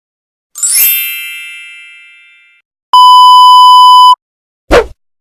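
A row of sound effects: a bright chime that rings and fades over about two seconds, then a steady one-second censor bleep, then a brief whoosh that sweeps downward.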